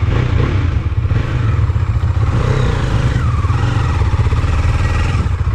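Motorcycle engine running as the bike sets off, a steady low rumble throughout.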